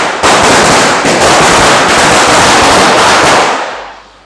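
Ground spinner firework (bhoo chakra) spinning on the pavement and hissing loudly as it sprays sparks. The hiss fades out near the end.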